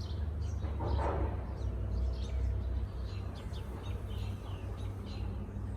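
Small birds chirping in the background, a running series of short, quick downward-sweeping calls, over a steady low rumble. A brief rustle about a second in.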